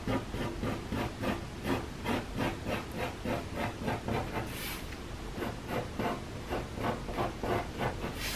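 Pencil scratching on paper in short repeated strokes, about two or three a second, as a curve is sketched over a paper pattern lying on a wooden tabletop.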